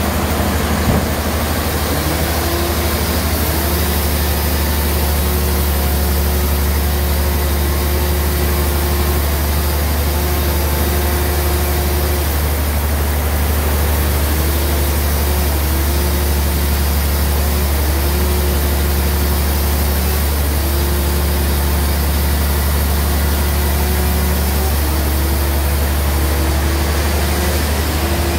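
Sawmill bandsaw running steadily with a deep hum. Its drive note drops briefly and recovers every few seconds.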